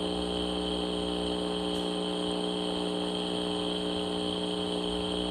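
A steady, unchanging hum made of several constant low tones, with a fainter high whine above it.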